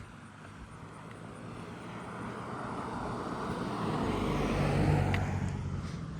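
A car passing by: tyre and engine noise swells to a peak about five seconds in, then begins to fade.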